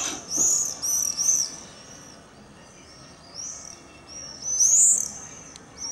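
Birds calling overhead: short, high-pitched arched chirps in quick runs. One cluster falls in the first second and a half, and a single louder call comes just before the five-second mark.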